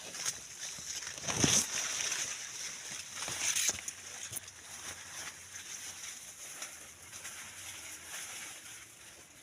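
Maize plants' leaves rustling, with two louder rustles about a second and a half and three and a half seconds in, over a steady high hiss.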